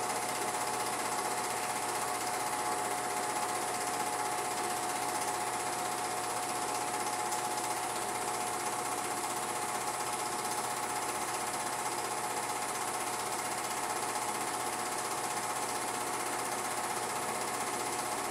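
Home-movie film projector running: a steady, rapid mechanical clatter that never changes.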